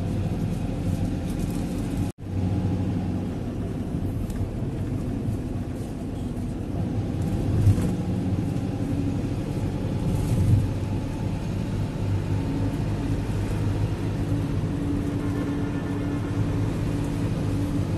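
Steady vehicle engine hum with a low rumble, as heard while riding along. The sound drops out sharply for an instant about two seconds in.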